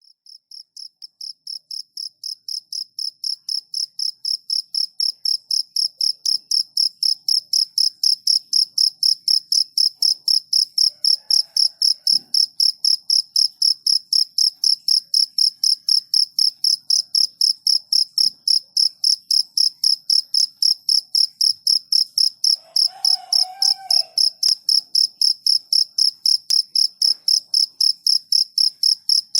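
A cricket chirping in a high, steady, evenly repeating pulse, a few chirps a second, fading in over the first several seconds and then holding level. A faint lower sound comes in briefly in the background about two-thirds of the way through.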